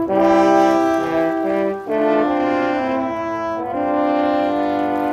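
A French horn quartet playing slow, held chords together, moving to a new chord every second or two.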